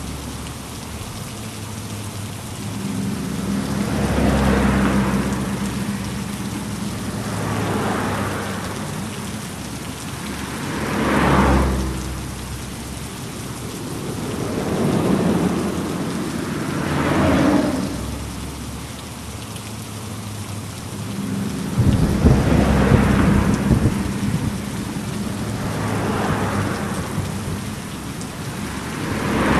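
Steady heavy rain with low rolling thunder that swells and fades every few seconds, the longest rumble about three-quarters of the way through.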